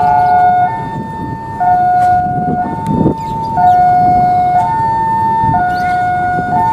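Railway level-crossing warning alarm sounding a two-tone electronic signal: a lower and a higher tone alternating, each held about a second, warning of an approaching train. A low rumble swells briefly about three seconds in.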